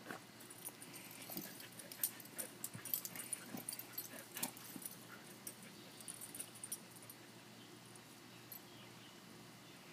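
A beagle and two sato dogs playing in grass: faint dog vocal sounds mixed with a scatter of short clicks and rustles, busiest over the first seven seconds, then quieter.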